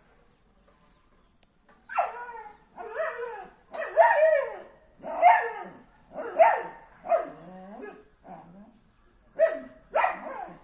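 A dog barking and whining, about eight drawn-out calls with bending pitch in quick succession, starting about two seconds in.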